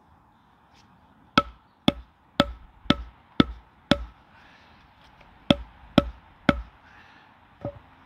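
Wooden mallet knocking a wooden peg leg down into a hole bored in a log: six sharp woody knocks about two a second, a pause, then three more and a lighter tap near the end.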